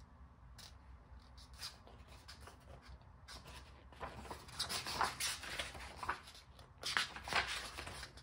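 Paper and card rustling and sliding as album contents are handled, in irregular bursts that get busier and louder about halfway through.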